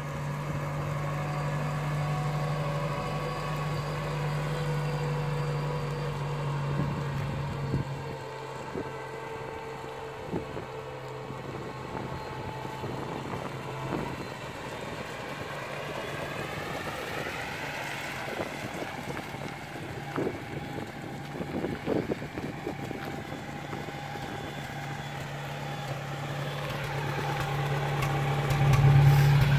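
Restored 1967 International Scout 800 engine running steadily as the truck drives about, its pitch rising and falling for a few seconds around the middle, with a few short knocks. Near the end it gets louder, heard close to the tailpipe.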